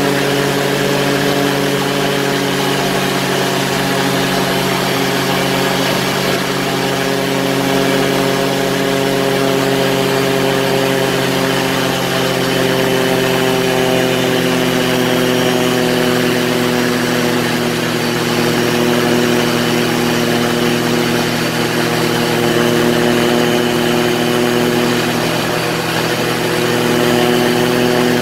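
Quicksilver ultralight's engine running steadily in flight, climbing out after a low pass over the airstrip without landing. Its pitch dips slightly about halfway through and rises again near the end.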